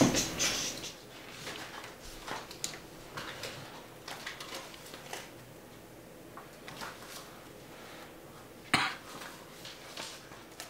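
Scattered light clicks and taps, with a louder knock about nine seconds in.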